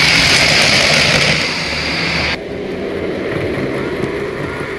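Three-rail O-gauge model trains running past close by. A model subway train rumbles by with a loud, steady rushing noise. It cuts off abruptly a bit over two seconds in, giving way to a quieter, lower rumble from a streamlined passenger train running on another layout.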